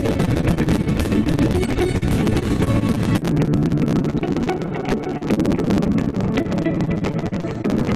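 Background music from a video's soundtrack, playing continuously.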